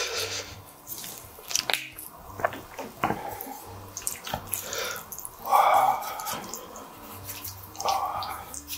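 Wooden spoon and fork tossing sauced squid ink spaghetti on a plate: wet, sticky squelches with many light clicks of wood on the plate, loudest about halfway through and again near the end. It opens with a brief hiss of grated cheese shaken from a shaker.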